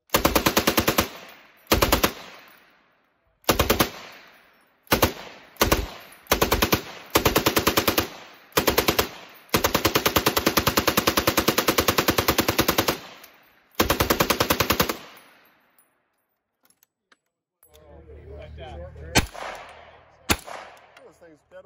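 Belt-fed machine gun firing about ten bursts of automatic fire, most of them short, with one long burst of about three and a half seconds roughly ten seconds in. Near the end come two single loud shots.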